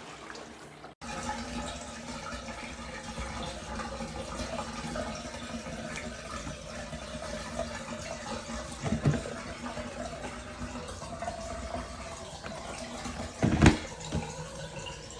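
A mini twin tub washing machine's wash tub running with clothes in it: steady swishing water over a faint motor hum, starting about a second in. Two louder knocks come near the middle and near the end.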